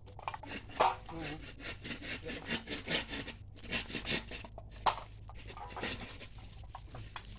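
A knife cutting up grilled duck: irregular sawing and scraping strokes, with a couple of sharp knocks, the loudest about five seconds in.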